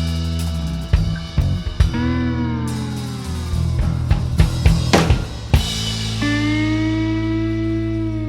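Background music with a drum beat and guitar: one note bends down about two seconds in, and a long note is held from about six seconds in.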